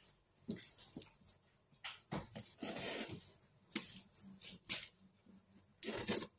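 A cardboard box being opened with a box cutter: the blade scrapes through packing tape and hands knock and rub the cardboard. It comes as a string of short scrapes and taps, with a longer rasping cut about two and a half seconds in and another just before the end.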